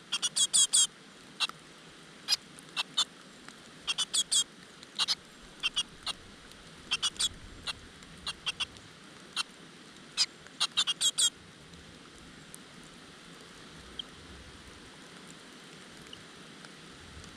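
Great tit nestlings begging: clusters of short, high-pitched squeaky calls, repeated every second or so, that stop about eleven seconds in.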